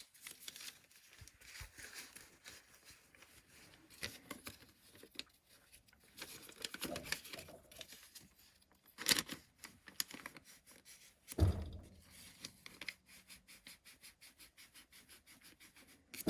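Light handling noises from parts and hand tools being worked on inside a gas furnace: scattered clicks, scratches and rubbing, with a couple of louder bumps about nine and eleven seconds in.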